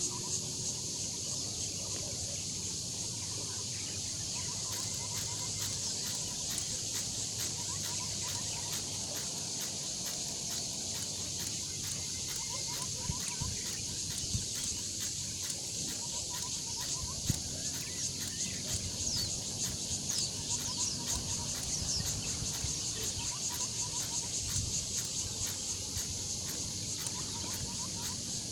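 Insects chirring in a steady high-pitched drone, with birds calling in short repeated chirps throughout.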